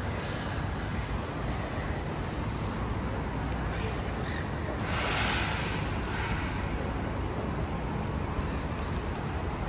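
City street noise: a steady rumble of traffic, with a brief louder rush of noise about five seconds in.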